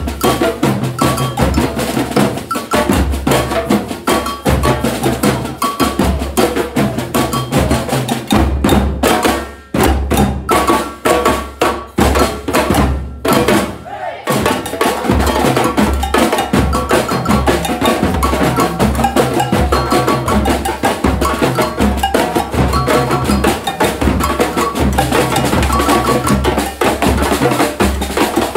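Brazilian batucada percussion ensemble playing live: strapped-on surdo bass drums, snare drums and cowbell in a fast samba rhythm. About eight seconds in the groove breaks into short unison hits with gaps between them, and around fourteen seconds the full rhythm comes back.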